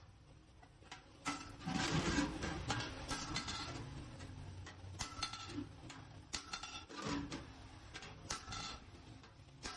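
Hand tools working galvanized sheet metal: irregular taps, clicks and scraping, busiest about two seconds in.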